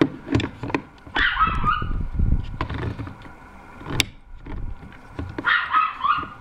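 A dog barking twice, about a second in and again near the end, among sharp clicks and knocks from the floodlight fixture being handled.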